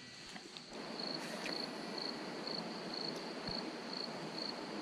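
An insect chirping in a steady rhythm, about two high chirps a second, over an even rushing hiss that comes in about a second in.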